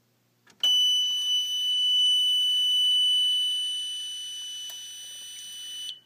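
Built-in buzzer of a Mircom FA-204E fire alarm control panel sounding one steady, high-pitched continuous tone after the system reset, starting about half a second in and cutting off just before the end.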